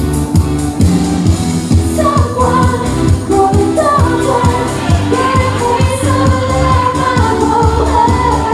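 Pop song performed live: a woman singing a sustained melody over a backing track with a steady, driving drum beat.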